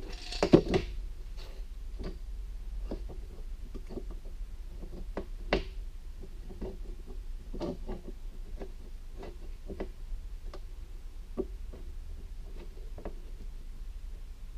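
Bar clamps being put on and tightened on a freshly glued plywood jig. A knock about half a second in, then irregular light clicks and small knocks every second or so as the clamps are worked.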